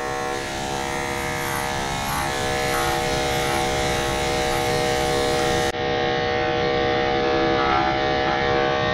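Electric dog grooming clippers running with a steady, even buzz as they are worked through the dog's matted coat around the ear.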